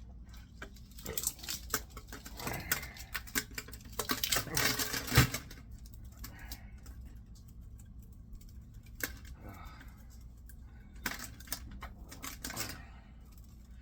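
Small metal tools and scrap parts being handled and knocked together: an irregular clatter of clicks and knocks, thickest in the first half with one sharp knock about five seconds in, and another short flurry near the end.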